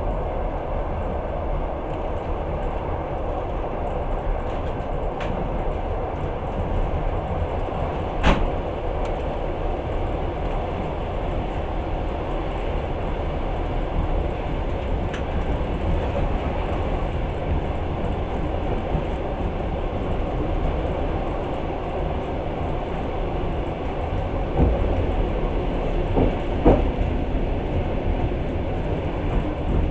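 Passenger train running, heard from inside the carriage: a steady rumble of wheels on rails with a few sharp knocks, the loudest about eight seconds in and a cluster near the end.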